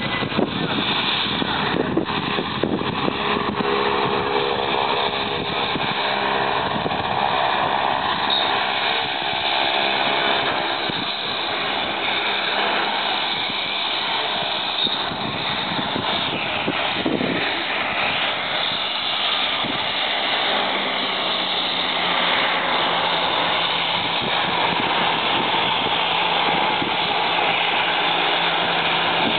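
Twin-engine Commander turboprop running as it taxis along the runway: a steady propeller and engine drone whose hum shifts in pitch now and then.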